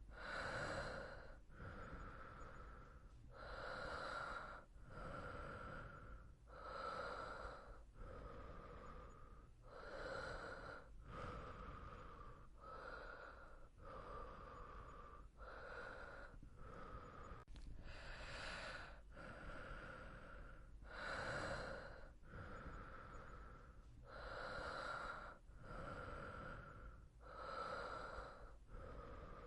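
Soft, slow breathing of a person asleep: a steady rhythm of gentle inhales and exhales, about one breath every three seconds.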